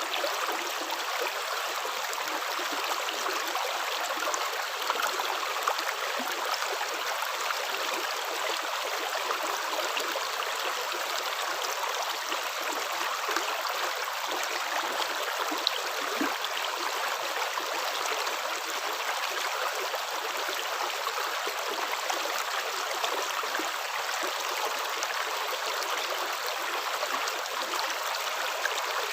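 Running water flowing steadily like a stream, with a few brief louder splashes here and there.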